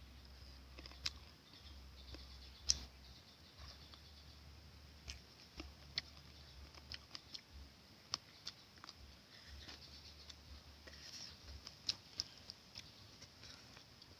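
Faint, irregular light clicks and taps of food and utensils being handled, one sharper tap about two and a half seconds in, over a low hum that comes and goes.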